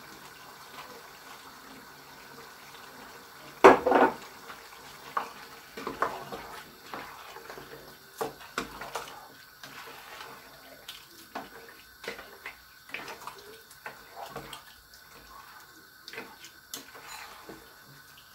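A spoon stirring and turning a thick, wet meat stew in a cooking pot to mix in the seasoning: irregular squelches, scrapes and light knocks of the spoon against the pot, with one louder knock about four seconds in.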